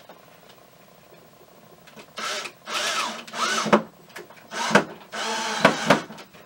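Cordless drill driving screws into 3/4 inch plywood, run in several short trigger bursts whose motor pitch rises and falls, starting about two seconds in, with a longer steady run near the end.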